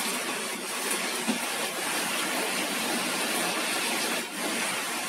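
Torrential rain pouring down, a steady, even hiss.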